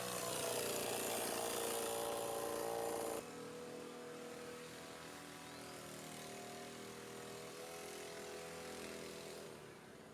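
Kasei petrol leaf blower's small engine running steadily, blowing air. It drops suddenly to a lower level about three seconds in and falls a little further near the end.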